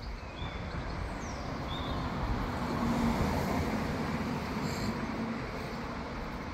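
Town street ambience: traffic noise swelling to a peak about three seconds in and fading again, as of a car passing, with a few short bird chirps.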